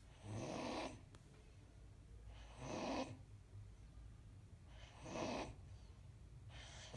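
A sleeping dog snoring, a soft rasping breath every two to two and a half seconds.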